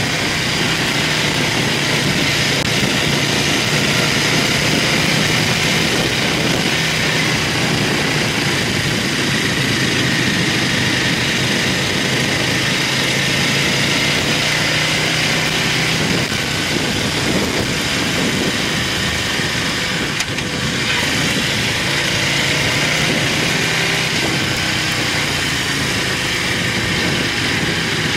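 Buell motorcycle engine running steadily at cruising speed, heard from on board under a constant rush of wind and road noise.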